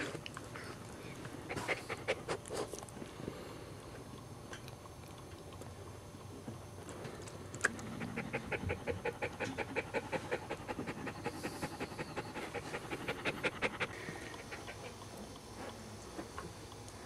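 Cairn terrier mother panting in quick, even breaths, about seven a second: a short run early and a longer run of several seconds in the middle, the panting of a dog in labour.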